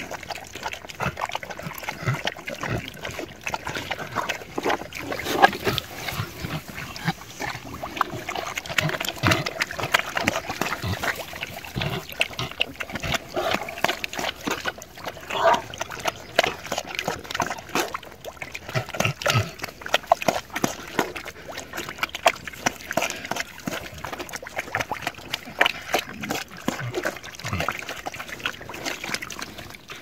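Several animals noisily lapping and slurping milk, a steady run of wet smacking and sloshing sounds with the odd grunt.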